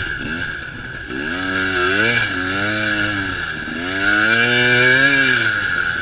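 KTM EXC 250 enduro bike engine, heard from onboard, easing off about half a second in, then revving up with rising pitch from about a second in, dropping briefly around three and a half seconds in and climbing again to its loudest about a second later before easing near the end.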